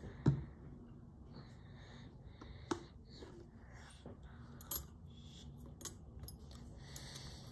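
Small metal tools handled on a wooden workbench: about six sharp light clicks and clinks spread over several seconds, the loudest right at the start, as steel watchmaker's tweezers are picked out from a row laid together. Soft rustling runs between the clicks.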